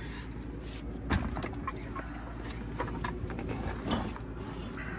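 A few light knocks and scuffs of car wheels and tyres being handled and set down on pavement, over a steady low background.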